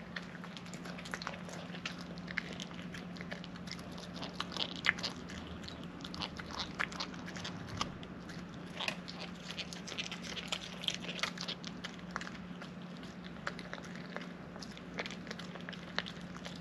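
A small dog, a Cavapoo, chewing and crunching its food in quick, irregular bites, over a steady low hum.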